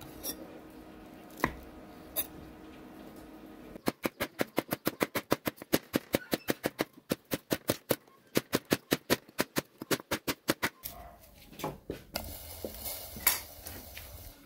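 Kitchen knife chopping a block of brown sugar on a wooden cutting board. A few single knocks come first, then a fast, even run of chops at about six a second for several seconds, then a few scattered knocks near the end.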